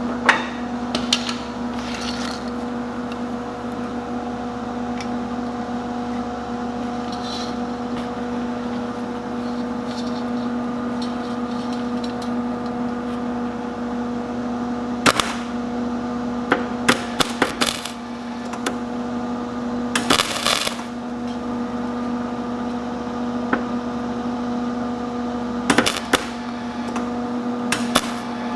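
MIG welder humming steadily, broken by a few short bursts of crackling as tack welds are struck on thin steel tomato-cage wire; the longest burst lasts about a second, about two-thirds of the way through.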